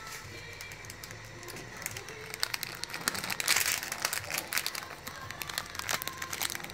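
Crinkling of a plastic seasoning sachet and a plastic ladle clicking against a stainless steel pot while mung bean soup is stirred. The crackly clicks pick up about two seconds in.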